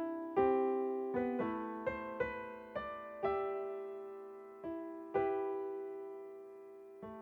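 Slow, gentle solo keyboard music in a piano sound: single notes and small chords struck one after another, each left to ring and fade before the next.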